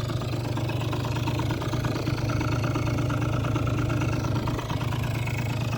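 Kymco Super Fever ZX 50cc scooter's small two-stroke engine idling steadily.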